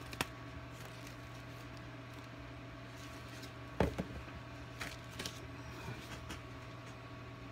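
Steady low hum of room tone, with a few light knocks and clicks from handling; the sharpest knock comes about four seconds in.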